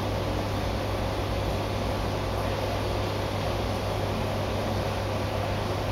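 Steady hum and hiss of running aquarium equipment such as pumps and filtration, with a constant low mains-type hum and a faint steady whine, unchanging throughout.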